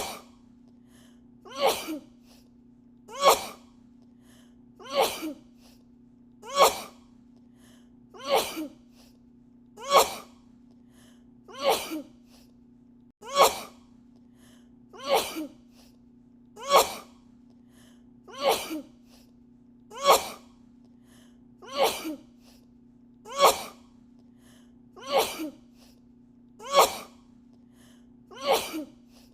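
A woman sneezing over and over in an edited loop, about eighteen sneezes evenly spaced every second and a half or so. Each is a sharp sneeze with a smaller sound right after it, over a faint steady low hum.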